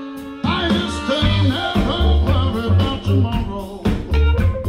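Live blues-soul band with a horn section of trumpet and saxophones, electric guitars, keyboards, bass and drums playing. A held chord opens, then the full band with drums and bass comes back in about half a second in.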